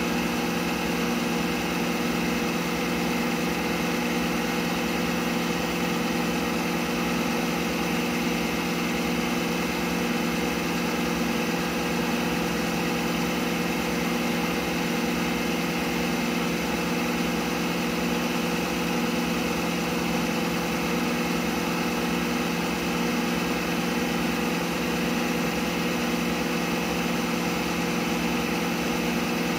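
CNC milling machine spindle turning a small brass workpiece at steady speed, used as a lathe: a constant motor and drive hum with a few fixed tones, unchanging throughout.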